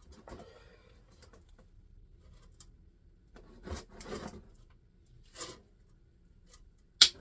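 Hand-tool work on a stripped-down Chevy 350 small-block: scattered light clicks and scrapes, two short louder rattling spells in the middle, and a single sharp crack near the end.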